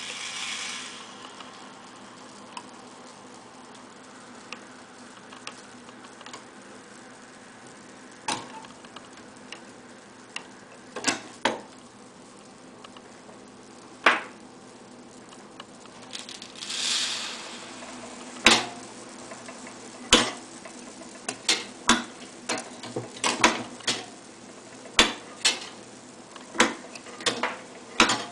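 Homemade automaton theatre model running by itself: a short rustling hiss at the start and again about two-thirds through, a few isolated sharp clicks, then sharp knocks coming irregularly about once a second near the end. These knocks are the model's sounds of battle as its warrior figure moves.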